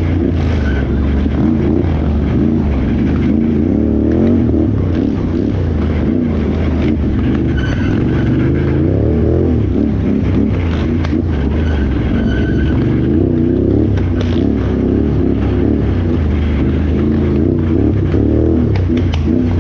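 Can-Am Renegade XXC 1000R ATV's V-twin engine under way in an off-road race, its pitch rising and falling continually as the throttle is worked.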